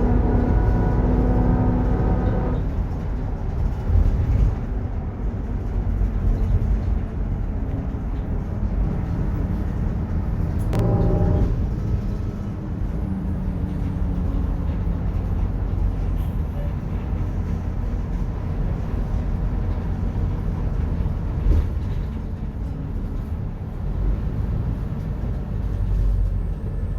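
Mercedes-Benz OF-1721 bus (Marcopolo Torino S) under way: a steady low rumble of engine and drivetrain with a droning whine from the rear differential, clearest in the first couple of seconds. A short click and tone sound about eleven seconds in.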